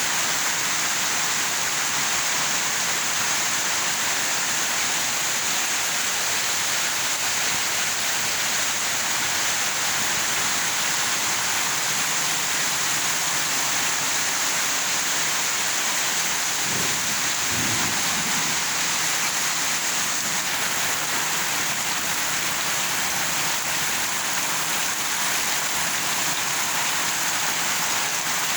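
Heavy rain pouring down steadily, a dense, even hiss. A brief low rumble comes about two-thirds of the way through.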